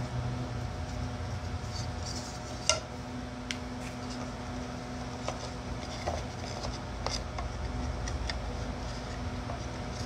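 Light clicks and taps of small wooden frame pieces being handled and fitted together around a panel in a lid glue-up, with one sharper click about two and a half seconds in. A steady low hum lies underneath.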